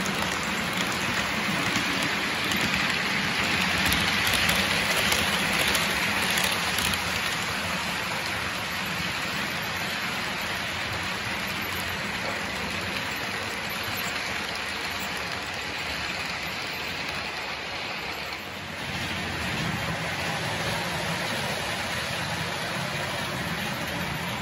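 OO gauge model trains rolling past on the layout's track: a steady rushing rattle of wheels over rail joints and pointwork, loudest about four to seven seconds in, with a brief dip about three-quarters of the way through.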